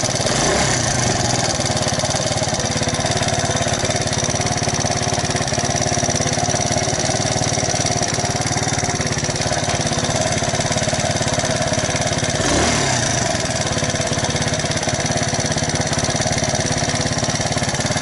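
An Alpha moped's 110 cc single-cylinder four-stroke engine idling steadily with a valve tick ("стук клапана"), which the owner traces to the valves needing adjustment. There is a brief swell in the engine sound past the middle.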